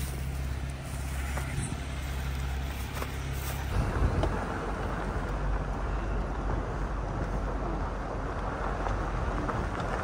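Jeep Wrangler engine running with a steady low drone, then, about four seconds in, the sound of the Jeep driving along a dirt road takes over: engine, tyres on gravel and wind noise.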